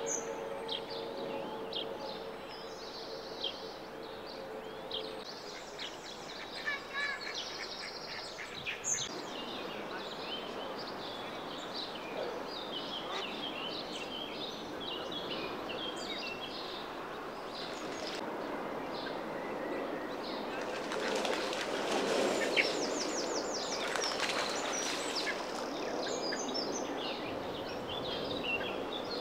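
Mallard ducklings peeping: many short, high chirps, over a steady outdoor background. A faint steady hum runs under them for the first few seconds and then stops.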